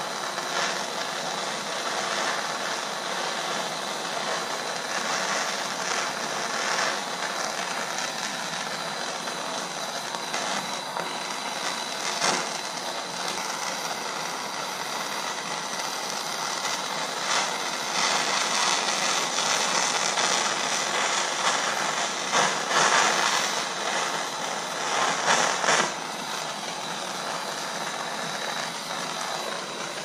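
Gas soldering torch with a larger tip burning in a steady, continuous hiss, swelling louder at times in the second half. The flame is heating a silver buckle tip on a charcoal block to flow solder.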